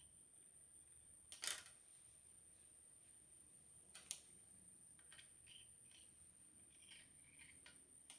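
Near silence with a faint steady high whine, broken by three short clicks, the first a quick double click about a second and a half in, another about four seconds in, and the sharpest at the very end.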